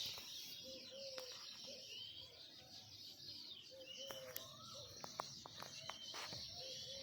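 Several birds calling and chirping: short, repeated low calls mixed with higher chirps over a steady high hiss, with a few sharp clicks.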